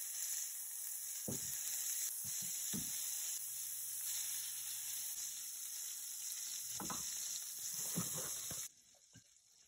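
Foie gras slices searing in a stainless steel skillet: a steady hiss of sizzling, rendering duck-liver fat, with a few low knocks from handling the pan and spatula. The sizzle cuts off suddenly near the end.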